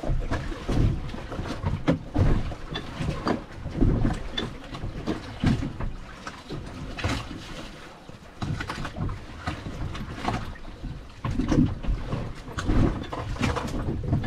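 Water lapping and knocking irregularly against the hull of a small boat, with wind buffeting the microphone.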